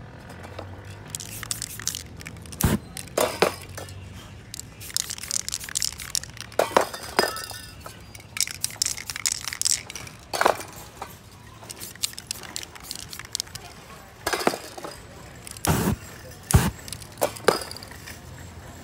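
Paper and card stencil pieces being peeled and lifted off a freshly spray-painted board: irregular crackling scrapes and sharp clicks as the edges snap free, with a few louder knocks, one about three seconds in and two close together near the end.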